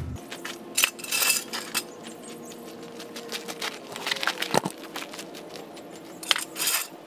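Metal clinks and clatters from a steel floor jack and its handle being set up under the truck's rear axle, with a cluster of sharp clanks about a second in and again near the end.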